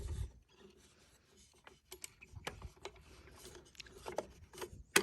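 Faint, scattered clicks and rubbing as hands handle a Hoover Convertible Elite upright vacuum to check that its drive belt is on, with a sharper click at the end.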